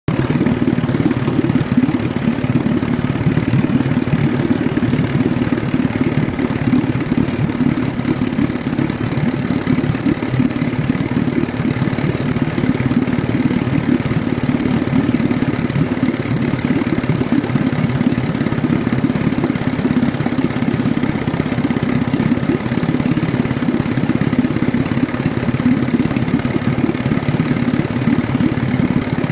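Vintage outboard motor running steadily at idle.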